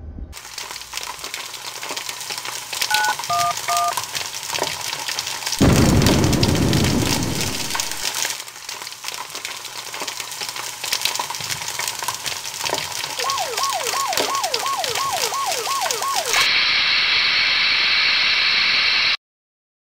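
Sound-effects track of a house fire: fire crackling throughout, a phone keypad dialing 9-1-1 in three short two-tone beeps about 3 seconds in, and a loud whoosh near 6 seconds as the fire reaches flashover. From about 13 seconds a siren yelps in quick falling sweeps, about three a second, then a hose nozzle opens into a steady hiss of spray that cuts off suddenly near the end.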